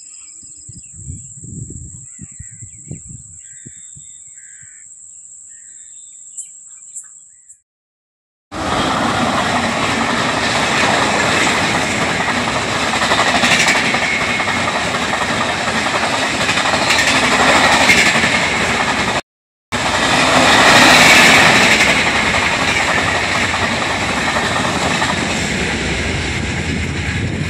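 Express train of red-and-grey LHB passenger coaches rushing past at speed: a loud, steady rush and rumble of wheels on rails that starts abruptly about eight seconds in, after quieter faint sounds. It cuts out for a moment near the middle, then carries on to the end.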